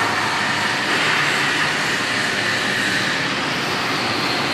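Steady industrial background noise of a steel fabrication shop: an even rushing noise with no distinct knocks or tones.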